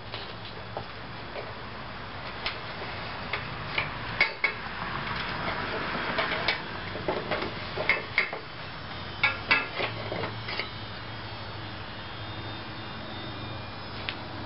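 Flat metal strap being handled and worked in a Workmate bench's clamping jaws: a string of light metallic clinks and knocks, with sharper clanks about four, eight and nine and a half seconds in, and a denser rattling stretch in the middle.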